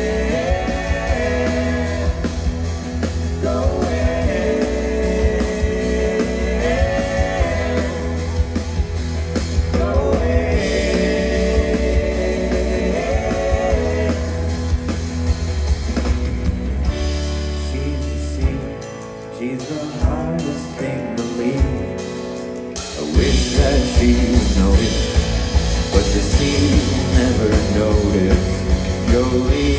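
Live indie-pop band playing a song with singing, amplified through a festival PA. The bass and kick drum drop out for a few seconds about two-thirds of the way through, then the full band comes back in louder.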